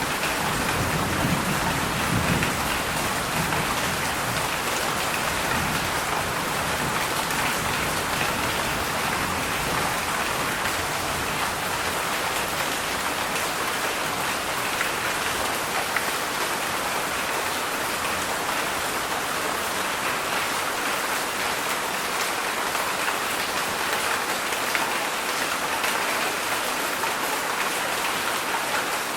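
Heavy summer rain falling in a steady, dense downpour, with a low rumble underneath during the first few seconds.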